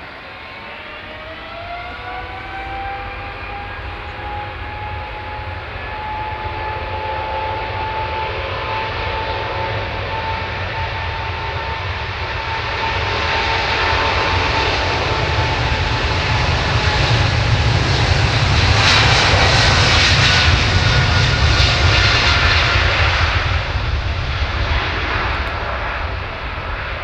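Boeing 777's twin jet engines spooling up to takeoff thrust, a whine rising in pitch over the first couple of seconds and then holding steady. The engine noise of the takeoff roll on a wet runway builds, is loudest about two-thirds of the way through as the jet passes, then eases as it rotates.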